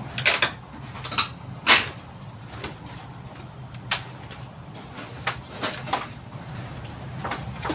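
Irregular knocks and clanks, about nine sharp strikes at uneven intervals, over a steady low hum.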